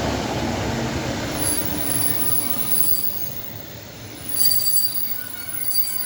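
Class 156 diesel multiple unit slowing to a stop, its brakes squealing in thin high-pitched squeaks over the fading rumble of the train. The squeals start about a second and a half in and come in short bursts toward the end.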